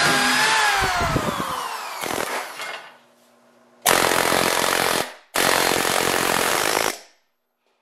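Cordless drill motor whining and spinning down in falling pitch after drilling out a spot weld in the door's sheet steel. After a short pause with a faint low hum, a handheld pneumatic tool runs in two bursts of about a second and a second and a half, cutting into the door's lower edge.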